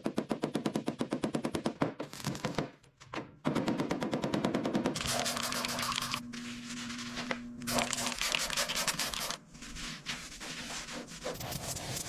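Workshop power tools at work on the car: a fast, even hammering rattle that stops about two and a half seconds in. After a brief pause, a steady rasping and hissing like sanding follows, with a low hum underneath for a few seconds in the middle.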